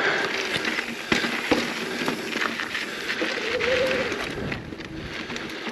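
Mountain bike rolling over a rocky dirt trail: tyres crunching over dirt and rock, with bike rattle and two sharp knocks a little after a second in.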